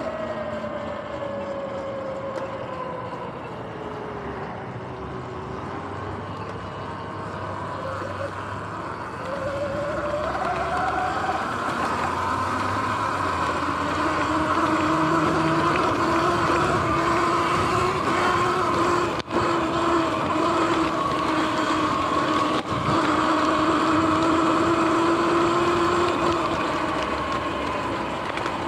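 Sur-Ron X electric dirt bike's motor whining under wind and tyre noise: the pitch falls over the first few seconds, rises again about ten seconds in, then holds steady and louder as the bike runs at speed across grass.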